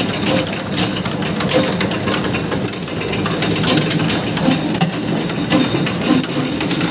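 Areca nut splitting machine running with a steady motor hum and a dense, irregular clatter of clicks and knocks as dried whole areca nuts (pinang klotok) are fed through and split.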